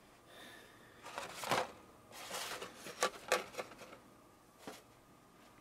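Paperwork and packaging being handled: short bouts of paper rustling with a few sharp light clicks.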